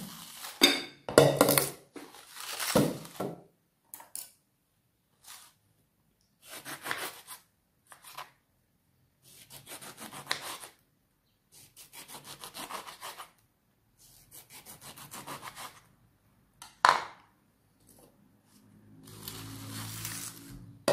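A knife sawing through a lemon on a wooden cutting board in several short bursts of strokes, after a few knocks as the board is set down on a stone counter. A longer scrape near the end as the board is slid across the counter.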